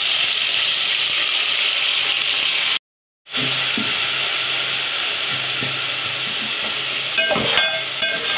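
Ground fennel, green chilli and garlic paste sizzling in hot oil in an aluminium pot, being stirred with a spatula. The sizzle cuts out for about half a second a few seconds in. Near the end the spatula scrapes the pot a few times.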